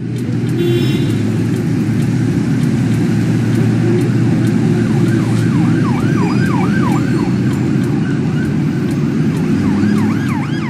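Siren sound effect over a loud rumbling noise bed with steady ticking; from about halfway in, the siren comes in as rapid, repeated rising-and-falling wails.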